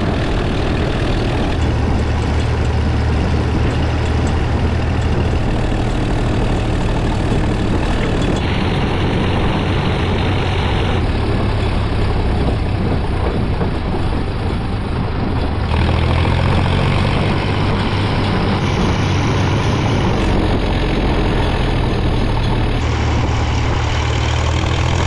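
1960 Fordson Dexta tractor's three-cylinder diesel engine running steadily as the tractor drives along the road, heard from the driver's seat just behind the upright exhaust stack. The sound shifts abruptly in tone several times.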